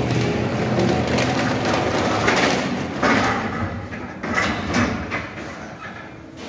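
Wheeled steel bakery rack loaded with metal trays rolling and rattling as it is pushed into a rack oven, the trays clattering with irregular knocks.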